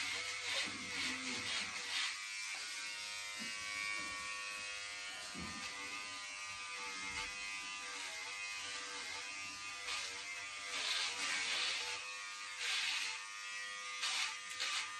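Cordless electric hair clippers buzzing steadily as they are run through thick hair, with a few short rasping bursts in the second half. The clippers are pulling the hair rather than cutting it cleanly, which the couple put down to the battery needing more charging.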